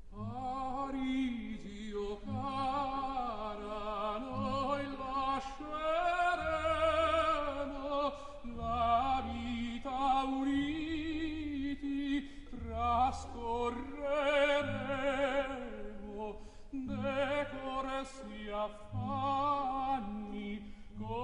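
Background music: operatic singing with strong vibrato over orchestral accompaniment.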